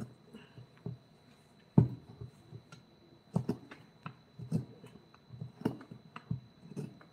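Irregular light taps and knocks of hand tools working a wood carving, several a second, with one sharper knock about two seconds in.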